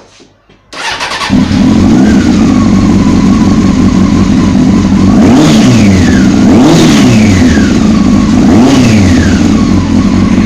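Honda CBR 600 F carbureted inline-four engine with an aftermarket competition exhaust, loud and running steadily, with the throttle blipped three times, each a quick rise and fall in pitch.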